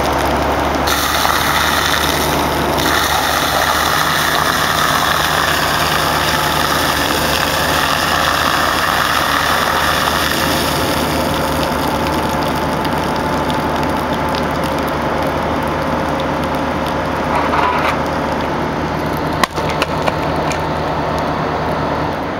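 Hitachi tracked excavator's diesel engine running steadily while the boom and bucket are worked, with a single sharp knock about nineteen seconds in.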